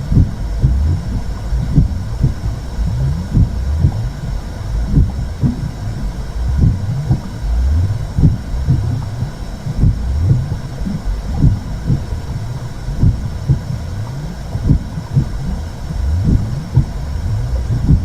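Womb sound for calming a baby: a deep, muffled low rumble with repeated heartbeat-like pulses running through it.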